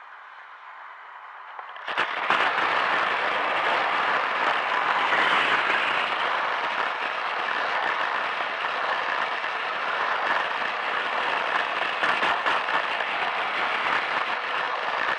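Plarail toy Shinkansen's battery motor and plastic wheels running on plastic track: a dense, steady clatter and rattle that starts suddenly about two seconds in as the train pulls away from a station and carries on at speed.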